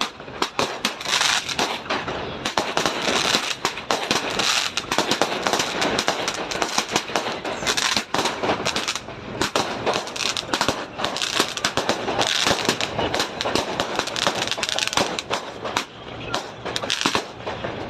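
A long string of firecrackers going off in a rapid, unbroken crackle of sharp bangs, many per second.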